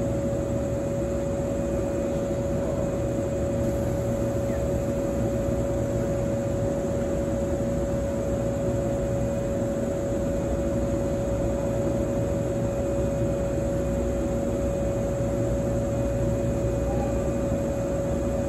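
Standing 485-series 'Hana' electric train, its on-board equipment giving a steady hum with one constant tone over a low, even rumble while it waits to depart.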